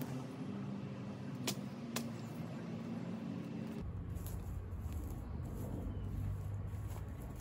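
Two sharp machete strikes into brush and vines about half a second apart, over a low engine-like hum; about halfway through, the background changes abruptly to a steady low rumble.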